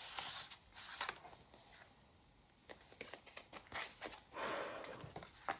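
Paper pages and inserts of a handmade junk journal rustling and sliding as they are handled, in a few soft spells with small clicks between.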